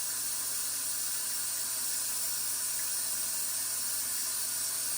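Steady, even hiss with a faint low hum beneath it, unchanging throughout.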